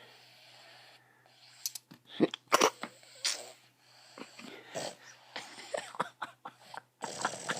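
A person's irregular breathy, wheezy vocal noises. The loudest, sharpest ones come in a cluster about two to three and a half seconds in.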